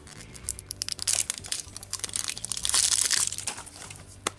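Crinkly packaging being torn and crumpled open by hand, a dense run of crackles through the middle and a sharp click near the end.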